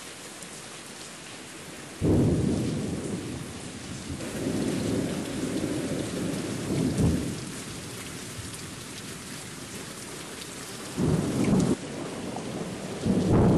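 Steady rain hissing, with low rolls of thunder: one breaks suddenly about two seconds in and rumbles on for several seconds, a shorter one comes near eleven seconds, and another begins near the end.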